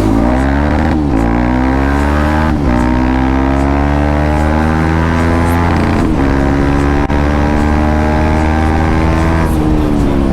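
KTM Duke 250 Gen 3 single-cylinder engine through an aftermarket Akrapovic R1M exhaust, ridden hard up through the gears. The exhaust note climbs in pitch and dips at each shift, about four times.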